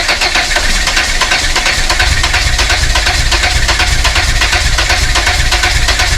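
Volvo 480's starter motor cranking the engine steadily without it catching, even with the ignition coil fed straight from the battery.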